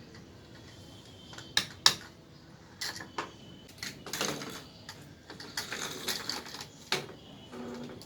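uPVC pipes and four-way cross connectors being handled and pushed together: irregular sharp plastic clacks and knocks, the loudest two close together about two seconds in, with scraping and rustling between.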